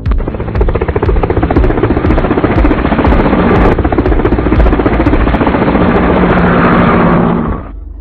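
Light helicopter with a two-blade main rotor flying close by: a loud, steady rapid chop of the rotor blades over the turbine's rush, cutting off suddenly near the end.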